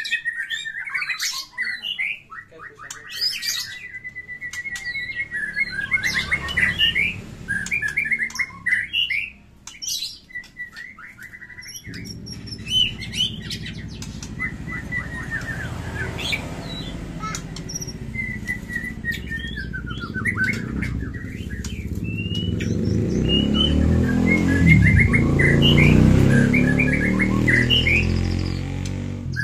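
White-rumped shama (murai batu) singing in fighting mode: bursts of varied whistles and chattering phrases, with a short lull partway through. A low rumble swells underneath in the second half and is loudest a few seconds before the end.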